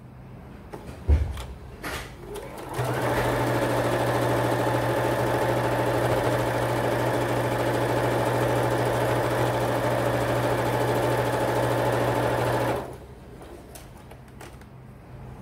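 Domestic electric sewing machine stitching a seam through cotton patchwork strips, running at a steady speed for about ten seconds and stopping abruptly near the end. Before it starts there are a few knocks from the fabric being handled and positioned, one sharp one about a second in.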